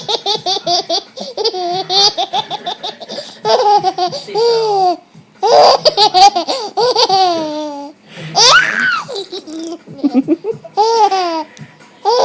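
A baby laughing hard in repeated bouts: rapid strings of high-pitched giggles broken by short gasps, with longer falling laughs and a rising squeal about two-thirds of the way through.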